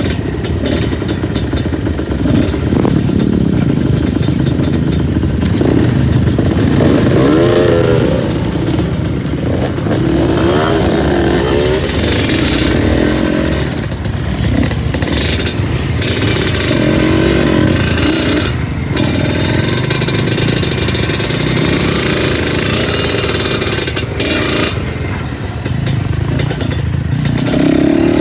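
Two-stroke trail motorcycle engine running under way, its pitch rising and falling repeatedly as the throttle is worked, over steady noise from the ride.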